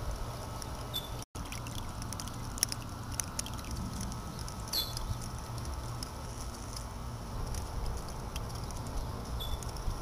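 A small solar-powered fountain pump's jet spraying and splashing back into a bowl of water, a steady patter. The sound cuts out completely for a moment about a second in.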